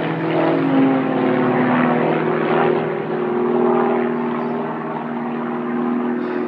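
Several small propeller aircraft flying overhead in formation, their engines making a steady, loud drone of several layered tones. One tone sags a little in pitch between about one and two seconds in.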